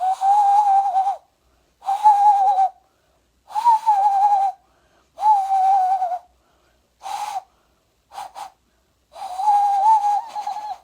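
Hand whistle, breath blown into cupped hands, giving hollow hooting notes in imitation of a cuckoo. About seven hoots, most about a second long with two short ones near the middle, each a steady low note with a breathy hiss.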